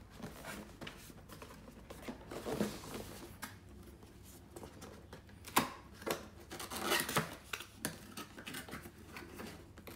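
Cardboard product box handled and its end flap pulled open by hand: irregular scrapes and rustles of cardboard with scattered sharp clicks, the sharpest about five and a half seconds in.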